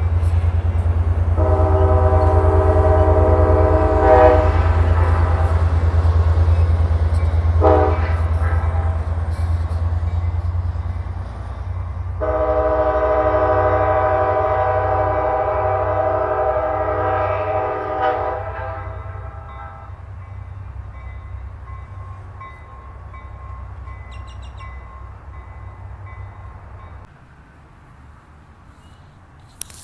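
Trinity Railway Express commuter train's horn sounding three blasts, one long, one short, then a long held one, over the deep rumble of the train's diesel engine, which fades about halfway through.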